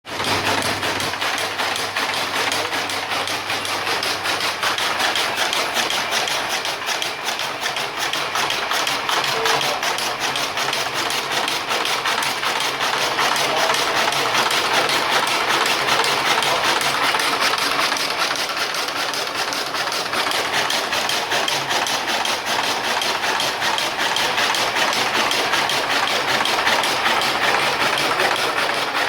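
An engine-driven machine running steadily, with a fast, even clatter.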